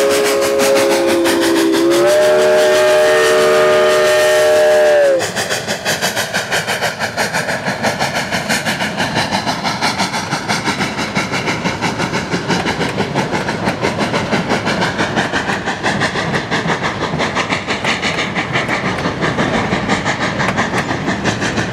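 Chime whistle of Cumbres & Toltec narrow-gauge K-36 steam locomotive 484 sounding a chord, dipping a little in pitch and rising again before cutting off about five seconds in. Then the passing passenger cars' wheels clack rhythmically over the rail joints.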